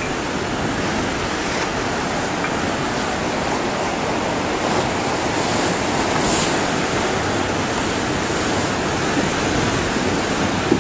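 Tsunami floodwater rushing and churning, a steady noise of water with no break.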